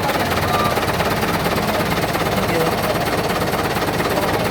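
Truck engine running through an open 'umplong' straight-pipe exhaust, a loud, steady, rapid rattle of exhaust pulses.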